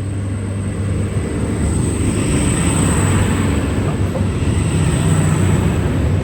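V/Line VLocity diesel railcar set running under power, its engines humming low and growing louder over the first two seconds, with a steady high whine above.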